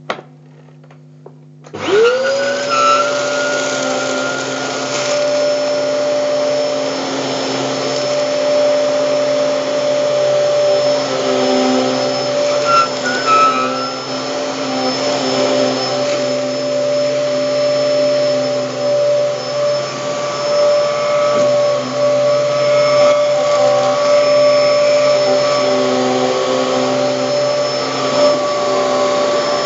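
Hoover Hurricane vacuum cleaner switched on a couple of seconds in, its motor spinning up with a quickly rising whine, then running steadily and loudly while cleaning carpet.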